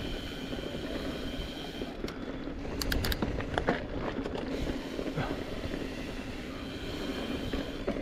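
Mountain bike riding along a dirt trail: a steady low rumble from the ride, with a run of sharp clicks and knocks from the bike about two to four seconds in.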